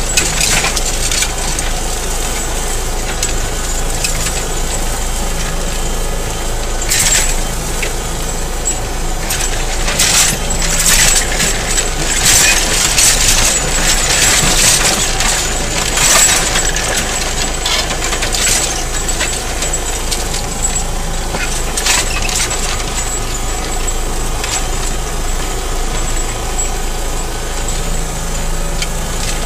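Kverneland mounted plough being drawn through stony ground behind a steadily running tractor engine, with irregular scraping, cracking and clinking of stones against the plough bodies, heaviest in the middle stretch.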